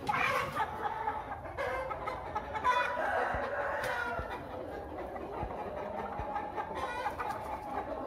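Chickens calling: roosters crowing and birds clucking, several calls overlapping, with one long drawn-out crow through the second half.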